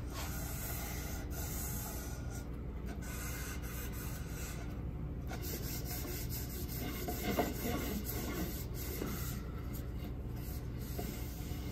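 A rag rubbing paste wax onto a walnut picture frame: soft, steady cloth-on-wood rubbing, a little louder about seven seconds in, over a low steady hum.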